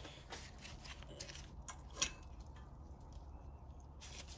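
Faint handling noises from working on a car's front brake: light clicks and scrapes, with one sharper click about two seconds in.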